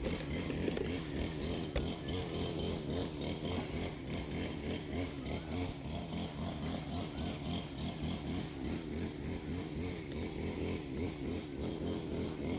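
Small engine of a worker's motorised machine running steadily, a continuous drone that wavers rapidly in loudness.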